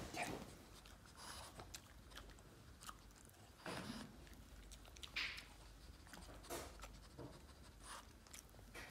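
Boston terrier biting and gnawing at a hard dried chew held in a hand: scattered, irregular crunching bites.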